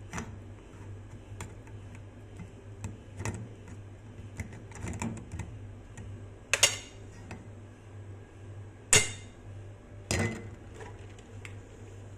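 A metal spoon scraping and pressing wet vegetable pulp in a stainless steel mesh strainer set in a ceramic mug, with scattered clinks of metal on metal and ceramic. Three louder knocks come about six and a half, nine and ten seconds in, over a low steady hum.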